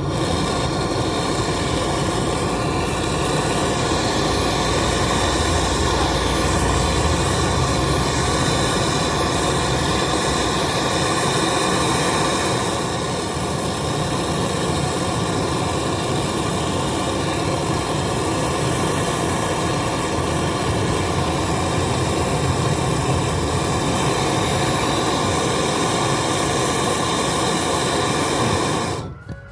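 Gas brazing torch burning with a steady hiss while the fridge's refrigerant pipe joints are brazed; the sound cuts off abruptly near the end.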